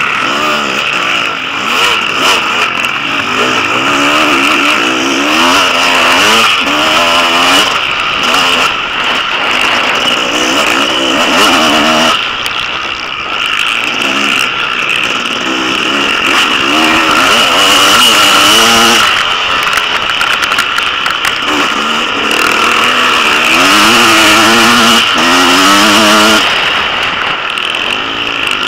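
Motocross bike engine at full race effort, its revs rising and falling again and again as the rider accelerates and backs off around the dirt track. Heard from the bike's onboard camera with a steady rush of wind noise.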